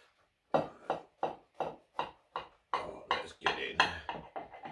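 Knife sawing through a toasted cheese sandwich on a plate: a quick series of crisp crunches, about three a second, as the blade cuts through the toasted bread.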